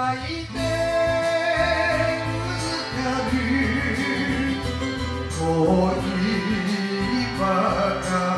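A Japanese song: a voice sings a lyric line over instrumental backing.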